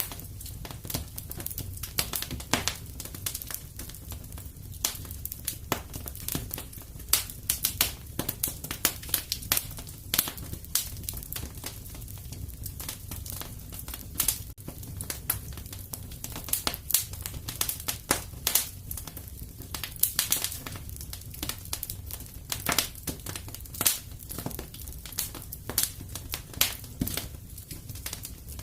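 Wood fire crackling in a fireplace: irregular sharp pops and snaps, several a second and some louder than others, over a steady low rumble of the flames.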